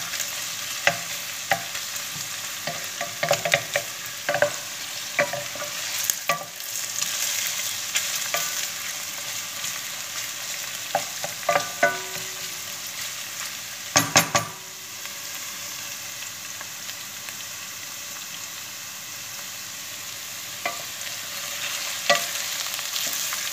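Beef cubes and chopped onions sizzling as they sauté in oil in a stainless steel pan, while a wooden spoon stirs them, scraping and knocking against the pan. The knocks come at intervals through the first half, are loudest about two-thirds of the way through, and after that the steady sizzle goes on mostly alone.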